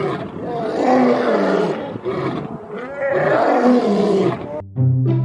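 Two male lions roaring together in two long roars that rise and fall in pitch. A children's music jingle starts near the end.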